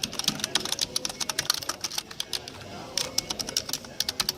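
Typing on a Trust Muto silent keyboard with small, round, low-profile typewriter-style keys. The keystrokes come in quick, irregular runs, with a short lull about two seconds in and then a dense flurry.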